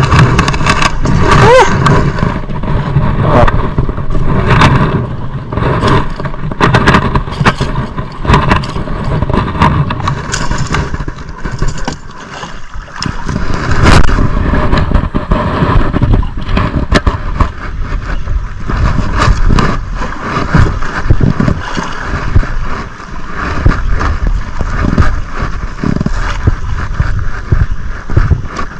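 Wind buffeting the microphone and water slapping against a small outrigger fishing boat, gusting up and down, while a spinning reel is cast and cranked.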